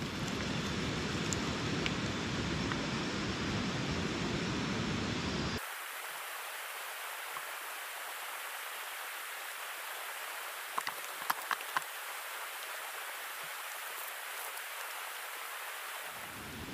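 Steady rain hiss around the camp, with a deep rumble under it for the first five seconds or so that cuts off suddenly. A few sharp clicks come a little after ten seconds.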